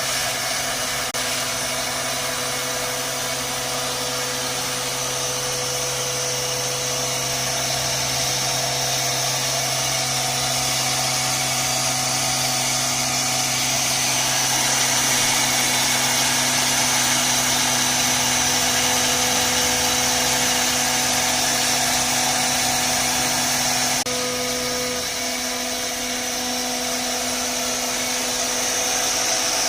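CNC router cutting WPC (wood-plastic composite) board: a steady machine noise with a high-pitched hiss and a constant hum. The lowest part of the hum drops out about 24 seconds in.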